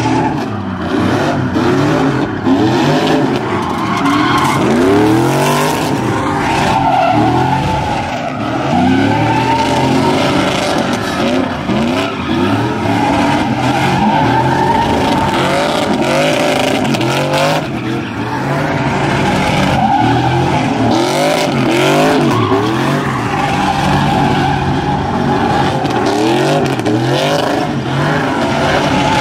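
Two pickup trucks doing tandem burnout donuts: engines revving up and down over and over, with the spinning rear tyres squealing and skidding on the asphalt.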